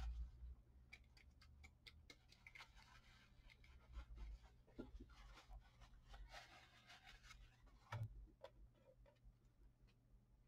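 Near silence with faint handling sounds on a craft table: scattered light clicks, a soft rustle of a paper tissue wiping up watery craft glue about six seconds in, and a single light knock about eight seconds in.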